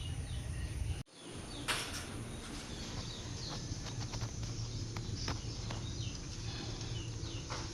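Birds chirping in the background over a steady low hum, with a few sharp clicks; the sound cuts out for a moment about a second in.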